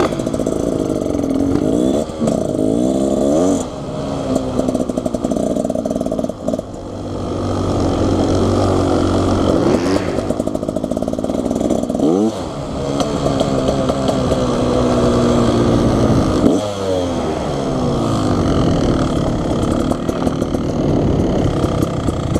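Dirt bike engine under way on a trail, revving up and easing off over and over. Its pitch climbs, then falls sharply about every four to five seconds with throttle and gear changes.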